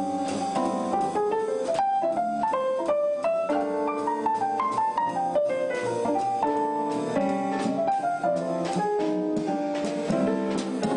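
Background music: a piano playing a melody over chords.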